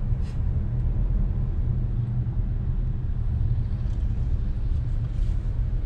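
Steady low rumble of a Kia Carnival minivan driving on a city street, its road and engine noise heard from inside the cabin.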